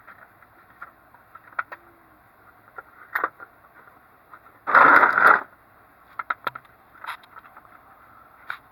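Metal hand tools and sockets clinking and knocking as they are handled, with one loud rattling clatter about five seconds in.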